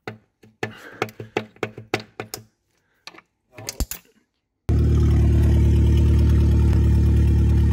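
Sharp, irregular metal clicks and knocks, a few a second, from a tool worked on the exposed crankshaft of a seized Ford 1.0 EcoBoost engine. About two thirds of the way through, a loud, steady mechanical hum cuts in abruptly.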